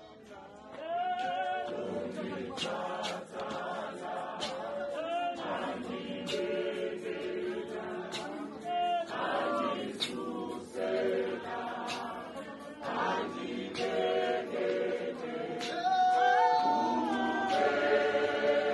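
Men's choir singing a hymn a cappella, with scattered sharp knocks. The singing swells about a second in and again near the end.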